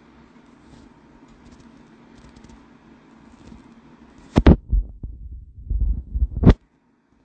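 Faint steady hum, then two sharp knocks about two seconds apart with low rumbling between them: the phone's microphone being bumped and handled. The sound cuts out completely right after the second knock.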